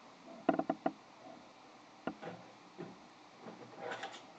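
Light handling noise on a wooden tabletop: a quick run of four small clicks about half a second in, a single sharp click about two seconds in, and a few softer ticks and rustles after it.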